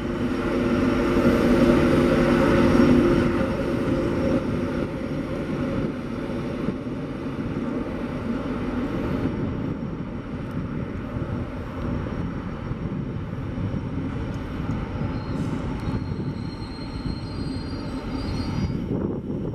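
A train running through the station: a loud rumble that peaks in the first few seconds, then settles into a steady lower rumble.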